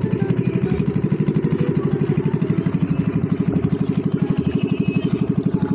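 Engine of a motorized outrigger boat (bangka) running under way, a loud, rapid, even pulsing beat.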